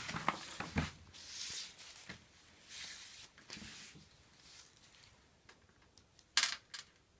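Paper and silk rustling with hands rubbing, as a pre-glued silk border strip is laid along the edge of a painting and pressed down, with a few light clicks. Two short, sharp rustles, the loudest sounds, come about six and a half seconds in.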